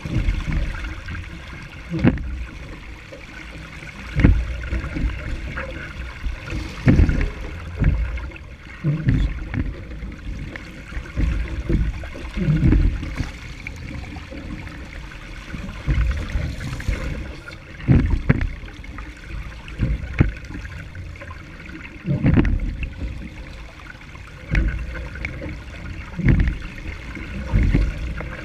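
Water rushing and slapping against the hull of a Laser sailing dinghy as it sails through chop, with a hard wave slap every second or two.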